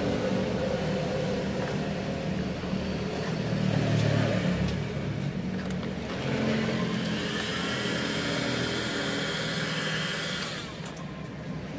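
Electric heat gun blowing with a steady whir while it warms carbon-pattern vinyl wrap film. A thin, high whine rides on it from about six seconds in, and the higher part of the sound falls away about ten and a half seconds in.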